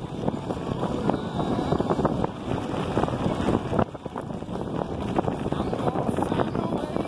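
Wind buffeting the microphone of a camera on a moving electric bike, over the crunch and rattle of its tyres rolling on a gravel road.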